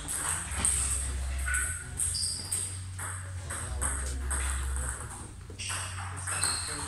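Table tennis balls clicking off bats and tables, irregular knocks from several rallies at once, with a few short high squeaks and a low hum underneath.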